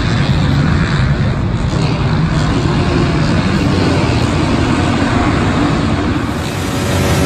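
A pack of motocross bikes racing, many engines revving at once and blending into one loud, continuous sound that dips slightly near the end.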